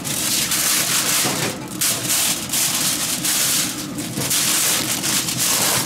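Triple-layered aluminium foil crinkling and crackling as it is folded and crumpled by hand into a tray, with brief let-ups about one and a half and four seconds in.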